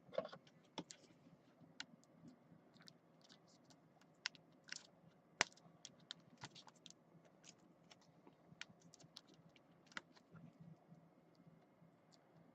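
Faint, irregular light clicks and taps over near silence, the sharpest about five seconds in.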